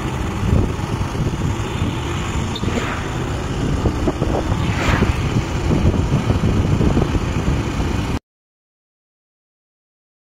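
Road and wind rumble from travelling in a moving vehicle, a dense steady noise heaviest in the low end. It cuts off abruptly about eight seconds in, leaving silence.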